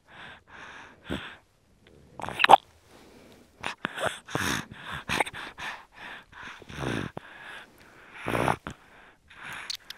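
Four-month-old baby breastfeeding with a blocked, runny nose: short, irregular sucking and snuffly, rattling breaths, about two a second, with a brief pause about two seconds in. The rattling and the breaks come from the nasal congestion, which makes sucking and breathing hard.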